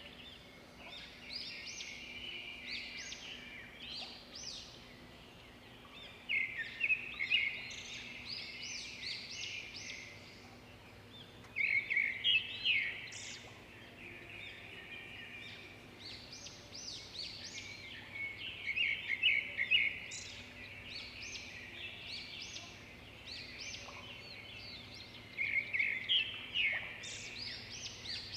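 Songbirds singing: a loud phrase of rapid, repeated notes comes about every six to seven seconds, four times in all, with quieter chirping in between, over a faint steady background.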